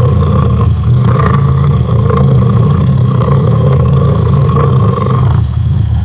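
Lion sound effect: a long, deep, unbroken growling roar.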